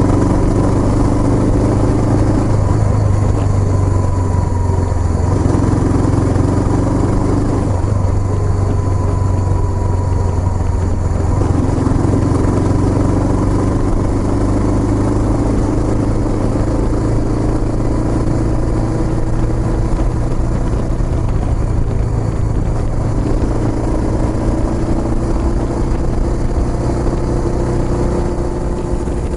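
Kawasaki Estrella's single-cylinder engine running through its aftermarket Yamato muffler, with the engine note shifting up and down several times.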